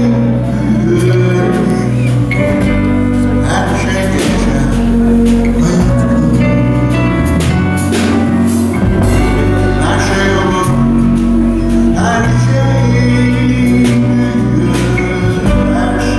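Live acoustic-style band music: steel-string acoustic guitar and electric guitar playing a slow song over sustained bass notes, with a voice singing.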